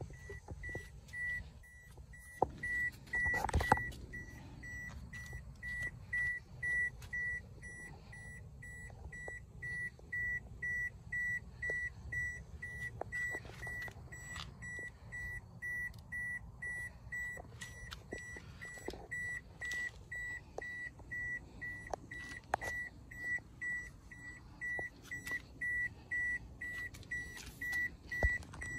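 A Toyota Corolla's dashboard warning chime beeping evenly over and over, a single high tone, while the driver's door stands open. A door clunk sounds about three and a half seconds in, and a low rumble runs underneath.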